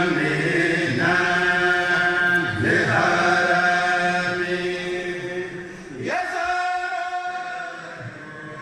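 Islamic devotional chanting: voices drawn out in long held phrases that glide in pitch, with a new phrase rising about six seconds in.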